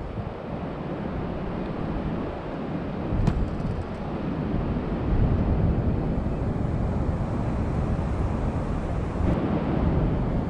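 Wind buffeting the microphone, a rough, uneven low rush, with one faint click about three seconds in.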